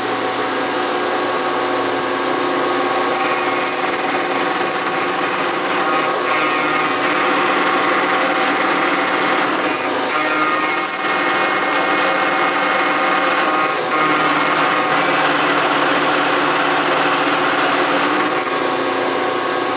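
Bridgeport milling machine running a 60-degree dovetail cutter through an aluminum block: the spindle's steady hum, with a high-pitched cutting whine that starts about three seconds in, dips briefly twice, and stops shortly before the end as the cut finishes.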